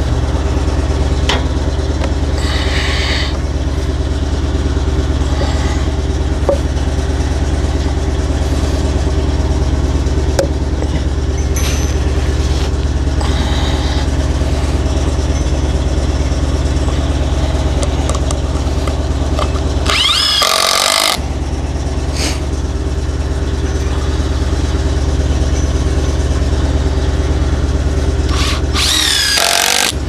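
Compact TYM tractor's diesel engine running steadily at idle, with a few light knocks.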